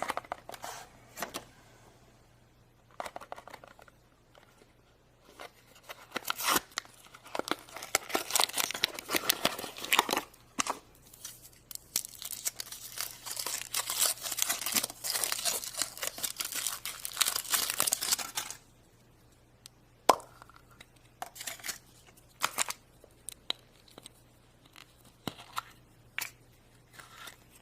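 Foil wrapper being torn and crinkled off a chocolate surprise egg, a dense crinkling stretch from about three seconds in until past halfway, then scattered small clicks and taps.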